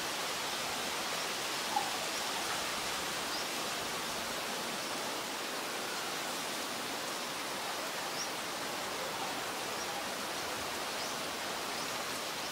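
Steady outdoor ambience: an even hiss, with a few faint, short chirps scattered through it.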